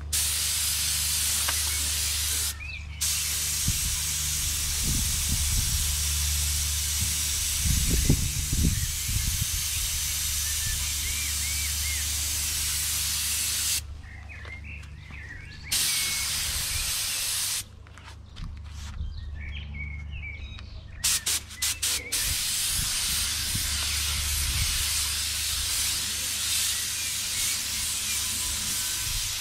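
Paint spray gun hissing in long passes, stopping a few times for a second or more, over a steady low hum.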